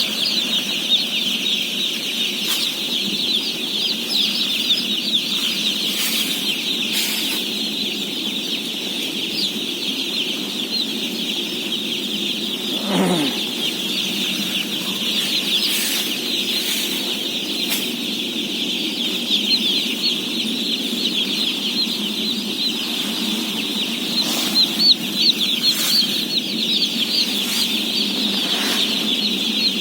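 Dense, continuous peeping of thousands of day-old chicks, a solid wall of high chirps with no pauses. A steady low hum runs underneath, with a few scattered knocks and one falling sweep about halfway through.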